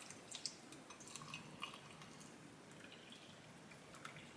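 Boiling water poured from a stainless-steel kettle into a ceramic mug: a faint, steady trickle with a few small drip-like ticks.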